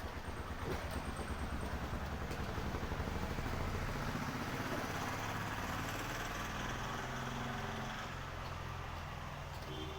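Steady rain falling in a city street, with a motor vehicle's engine passing by, loudest about four seconds in and fading after.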